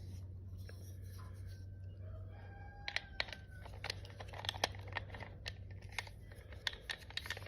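Scattered light clicks and taps of plastic recoil starter parts and a spring-loaded screw being handled, most of them in the second half, over a steady low hum.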